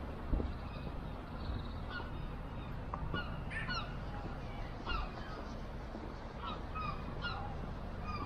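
Gulls calling, many short harsh calls overlapping, some sliding up or down in pitch, over a steady low background noise.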